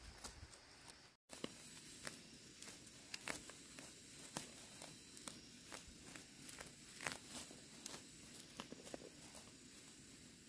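Faint, irregular crackling and tearing of weeds being pulled by hand from dry soil, with leaves rustling against the hand. The sound cuts out briefly about a second in.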